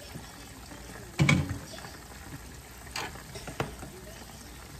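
Chicken pieces frying in vegetable shortening in an electric skillet, a steady low sizzle while the shortening is still reheating after the cold chicken went in. A knock about a second in and two lighter clicks near the end, like a utensil against the skillet.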